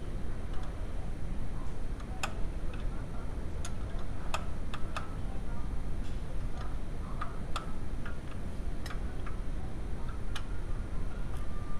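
Sharp, irregularly spaced metallic clicks and taps of hand tools working on the engine while the timing belt tensioner is set, over a steady low background rumble.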